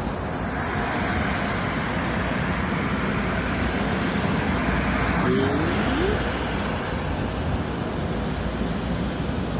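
Steady road traffic noise: a continuous roar of cars passing on the surrounding roads.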